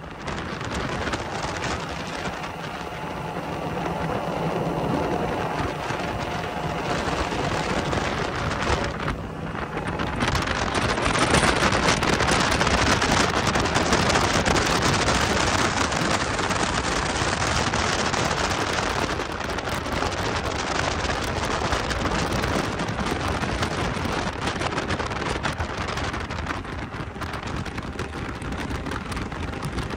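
Center-console motorboat under way across open water: wind buffeting the microphone over the rush of water along the hull and the running boat motor. Loudest from about ten to nineteen seconds in.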